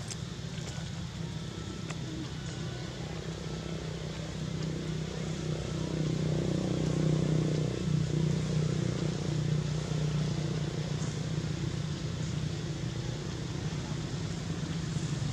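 A motor engine hums steadily, growing louder from about six seconds in and easing a little near the end.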